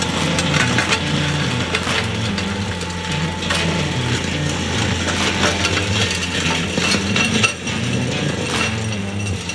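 PTH MicroCrusher stone-crusher rotor grinding soil and stones under power from its tracked carrier, a steady low running hum broken by many sharp clicks and knocks as stones strike the tools.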